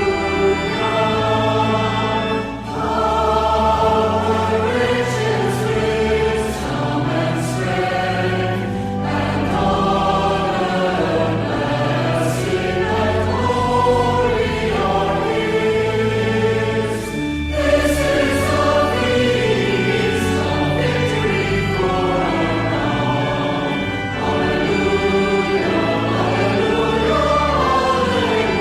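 A choir sings a hymn to a slow, even accompaniment of long held bass notes that change in steps.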